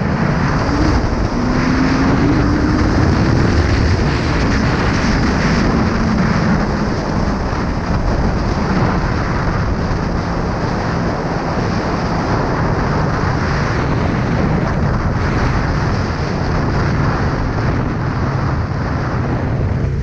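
Heavy wind rush over the microphone of a Honda CB1000R at riding speed, with its inline-four engine rising in pitch over the first few seconds as it accelerates, then running steadily.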